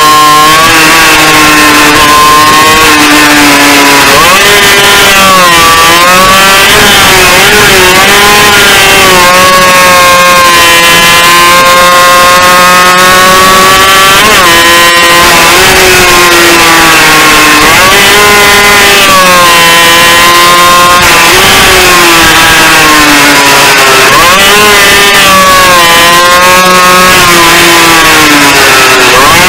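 Small racing motorcycle engine heard from a camera on the bike, very loud and close, its pitch climbing under acceleration and dropping back for each corner, again and again through a lap. A steady hiss of wind and road lies under it.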